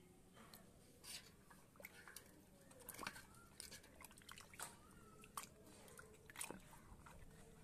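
Faint, irregular clicks and soft wet squelches of plastic toys being handled and scrubbed in water, with a few small squeaks.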